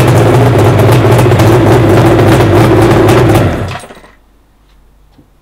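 Suzuki GT750A's three-cylinder two-stroke engine running through aftermarket Higgspeed exhausts, with a fast crackling exhaust beat. About three and a half seconds in it cuts off and dies away within half a second.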